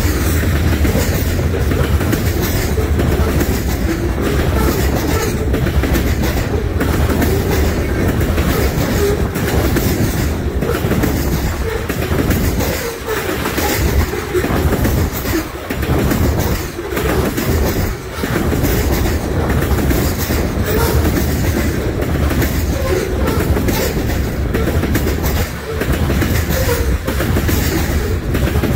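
Tank cars of a freight oil train rolling past: a loud, steady rumble of steel wheels on rail with repeated clickety-clack of the wheels over the track.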